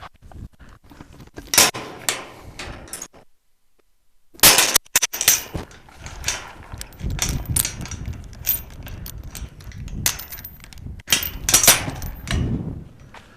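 Irregular sharp knocks, clicks and clanks of things being handled, with a sudden drop to silence for about a second partway through.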